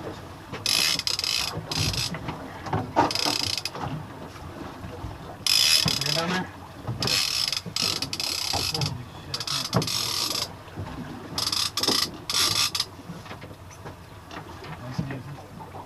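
Fishing reels clicking and ratcheting in repeated bursts, each half a second to a second and a half long, as line is cranked in against a fish.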